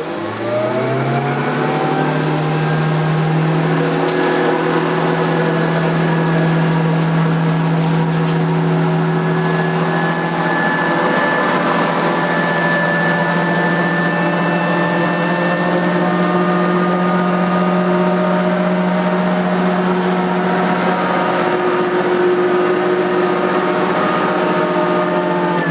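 Nilco 271 commercial upright vacuum cleaner with an eight-strip brush roll, switched on and whining up to speed, then running steadily as it vacuums dust and dirt from a carpet. Near the end it is switched off and its motor winds down in pitch.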